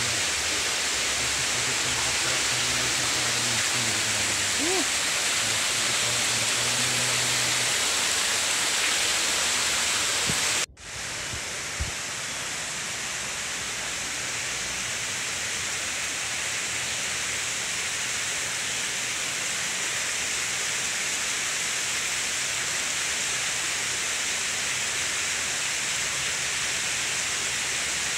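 Steady rushing hiss of noise, like rain or running water, with a faint low hum in the first half. About eleven seconds in it cuts out for an instant, then runs on a little quieter.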